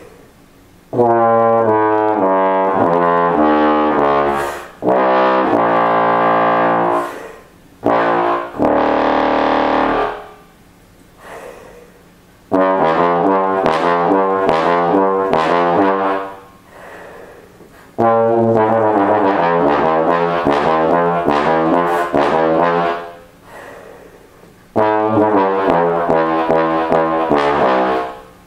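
Bass trombone playing several short phrases of sustained and moving notes, some reaching down into the low register, with brief pauses between them.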